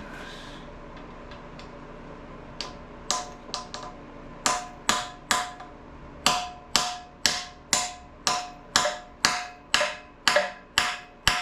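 Hammer blows on a rust-seized exhaust manifold bolt head on an LS 5.3 cylinder head, struck to shatter the rust and break the bolt loose. A few light taps come first, then steady blows about two a second, each with a short metallic ring.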